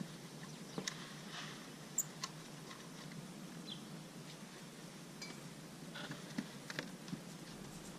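Faint scattered clicks and rubbing of a rubber air intake tube and its hose clamp being loosened and worked off a throttle body.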